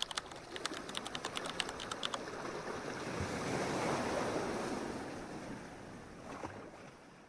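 Ocean waves washing in, swelling to a peak and fading away, with a few sharp clicks in the first two seconds.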